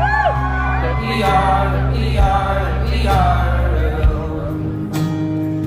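Live band music heard loud through a theatre sound system: acoustic guitar over a heavy, steady bass, with a few gliding tones near the start; the bass drops away about four seconds in.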